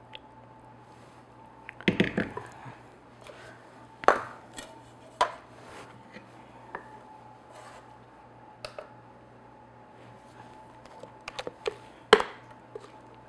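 A spatula knocking and scraping against a glass mixing bowl, and the bowl set down and handled on a stone counter, while cake batter is scraped out into pans: a string of sharp clacks and knocks, loudest about two, four and twelve seconds in, over a faint steady hum.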